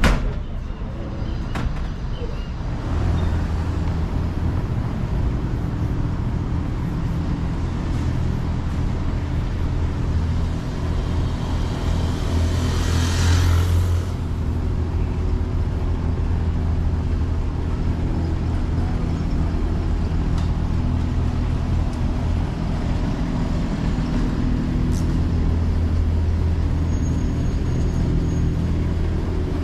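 Road traffic: a steady low engine hum under street noise, starting about three seconds in, with a brief swell of louder noise about halfway through.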